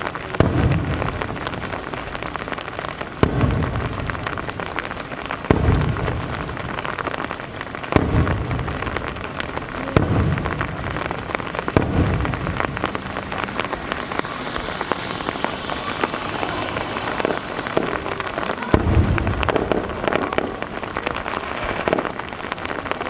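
Aerial firework shells bursting in a series of deep booms a few seconds apart, with a longer gap before the last one. Steady rain hisses throughout.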